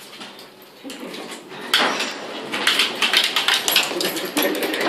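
Quiet at first, then from about two seconds in a busy run of clicks, taps and rustling: footsteps, a small dog's scrabbling and phone handling noise on a hard lift floor.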